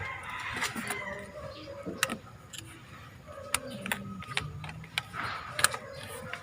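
Scattered light clicks and taps of hands working on spark plug high-tension wires in the engine bay, with faint voices under them.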